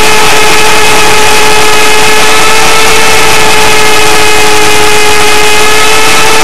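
Align T-Rex 500 ESP electric RC helicopter, recorded by its onboard camera in flight. A steady, high motor-and-gear whine sits over loud rotor and wind rush, so loud it overdrives the tiny microphone.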